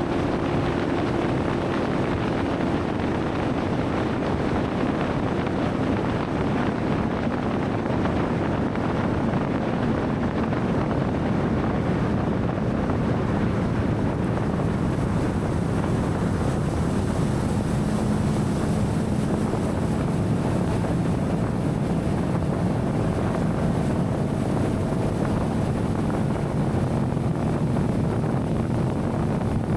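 Outboard motor running steadily as the boat moves across the water, with wind noise on the microphone.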